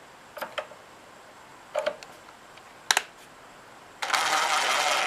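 A few light metallic clicks and taps of hand tools working on a small engine's ignition coil, then about a second of loud rasping near the end as the coil mounting bolts are tightened.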